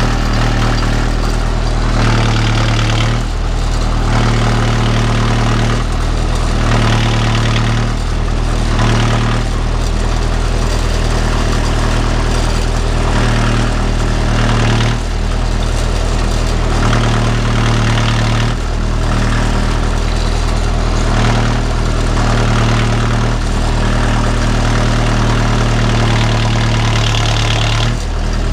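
A 45 hp utility tractor's engine running steadily, its note shifting up and down every second or two as it works the front-end loader lifting a round hay bale.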